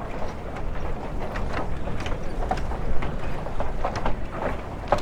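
Busy outdoor ambience: a steady low rumble with scattered sharp clicks and knocks at irregular intervals.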